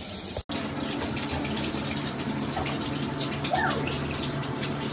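Water spraying steadily from a dual shower head, an even rushing hiss, broken by a momentary silence about half a second in.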